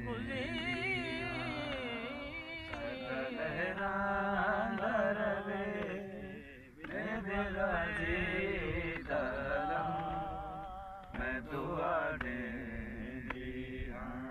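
A man chanting a noha, a Shia lament, in long, wavering, drawn-out phrases, with a short break about halfway through.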